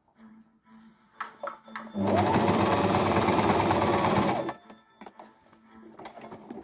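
Sewing machine stitching in one steady fast run of about two and a half seconds, starting about two seconds in and stopping abruptly. A few light clicks come just before it.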